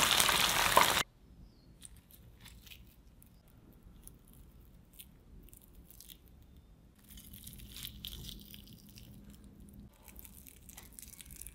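Breaded chicken wings deep-frying in hot oil, with a loud sizzle that cuts off suddenly about a second in. Then come faint crackles of the crispy crumb-coated wings being handled, and from about seven seconds in a louder crunchy crackling as a fried wing is pulled apart.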